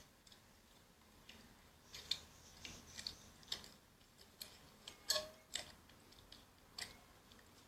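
Faint, scattered clicks and small pops of slime being stretched and mixed by hand, about a dozen spread irregularly over several seconds.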